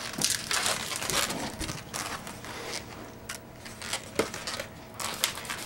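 Inflated latex modeling balloons (260s) being handled and twisted: rubbing of latex against latex and hands, with scattered short clicks.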